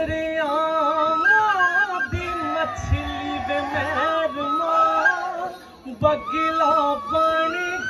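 Punjabi Jhoomar folk song: one voice sings a melody of long held notes that step up and down, with low dhol beats marking the pauses.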